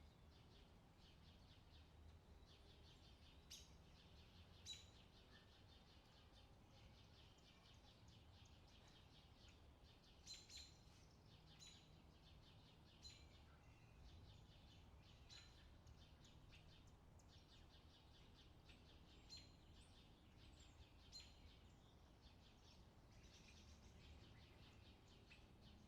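Faint outdoor nature ambience: small birds chirping in patches of quick high notes, with a handful of sharper single calls, over a steady low background rumble.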